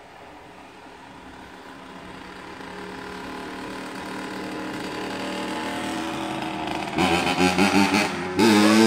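Freshly rebuilt Honda CR85R single-cylinder two-stroke dirt bike engine, its steady note growing louder as the bike approaches. About seven seconds in it gets suddenly louder and revs, its pitch sweeping up and down.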